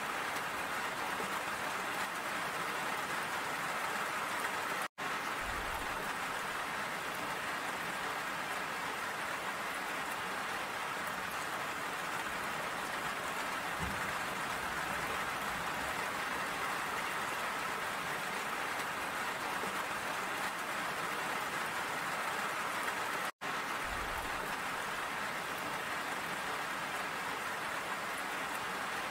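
Steady rain falling, an even dense hiss. It cuts out for an instant twice, about five seconds in and again near the end.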